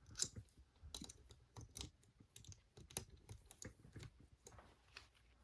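Faint, irregular small metal clicks and light scrapes of home-made lock-picking tools, a turning tool and pick, being handled at a 4-lever padlock, several ticks a second.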